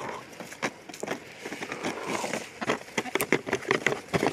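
Several hens pecking pieces of coconut bar cookie out of a plastic tub: a scatter of quick, sharp beak taps that grows into a thick run in the second half.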